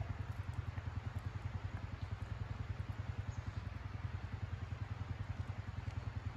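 A small engine running steadily at idle, a fast, even low throb.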